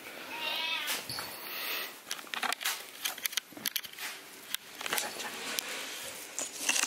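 Domestic cat giving a short wavering meow about half a second in, then soft scattered clicks and rustles of handling.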